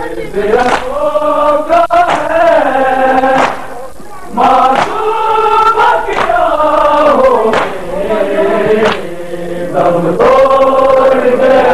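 Men chanting a Shia noha (Urdu lament) in unison in long, drawn-out phrases, with sharp hand slaps of matam chest-beating landing roughly once a second.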